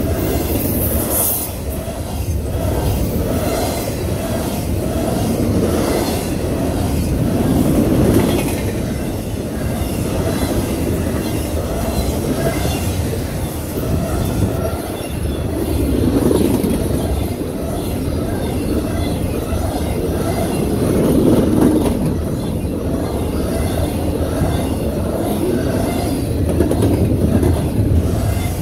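Intermodal freight train's double-stack well cars and trailer cars rolling past close by: a steady rumble of steel wheels on the rails that swells every few seconds as the cars go by.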